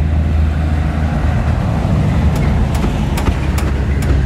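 Engine idling with a steady low hum. A run of sharp clicks or taps over the last two seconds.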